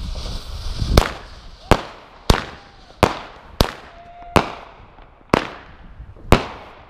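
Phantom Fireworks Garden in the Spring firework: a hissing spray of sparks for about the first second, then eight sharp bangs a little under a second apart as its shots burst, each trailing off in an echo.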